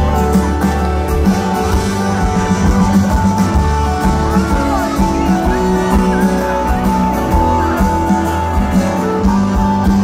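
Live rock band playing through a festival PA, heard from within the crowd: guitars, bass, drums and keyboards with a singing voice over a steady beat.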